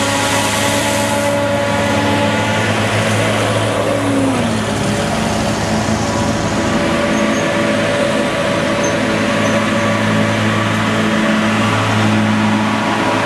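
Claas Jaguar 960 forage harvester and an accompanying tractor running steadily under load while chopping green crop. A tractor with its silage trailer passes close about four seconds in, and one engine note drops in pitch as it goes by.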